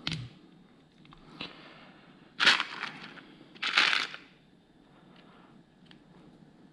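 Two short bursts of plastic rustling and rattling, about a second apart, with a few light clicks before them: small plastic building pieces and their packaging being handled.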